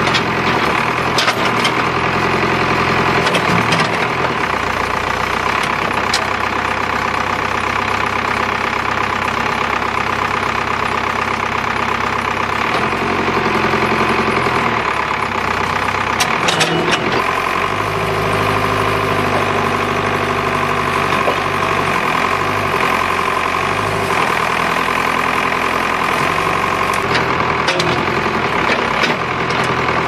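Backhoe engine running while the bucket digs soil and roots, with the engine note shifting up and down several times as the hydraulics take load. A few sharp knocks and clunks from the bucket and boom sound over it.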